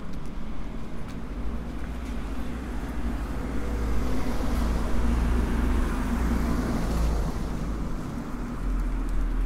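A car driving past, its engine and tyre noise swelling to loudest about halfway through and then easing off.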